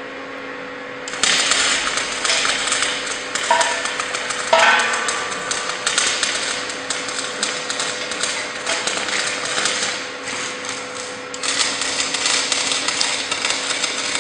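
Electric arc welding on a steel chassis: the arc strikes about a second in and crackles and sizzles steadily, stops for a moment near the ten-second mark, then strikes again. A steady low hum runs underneath.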